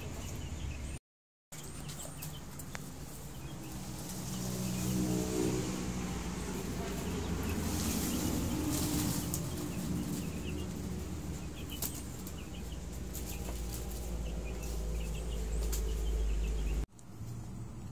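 Mangosteens tumbling out of a tipped woven basket onto a tarp, a rustling, rolling clatter loudest around the middle, over a steady low rumble. Chickens cluck faintly in the background.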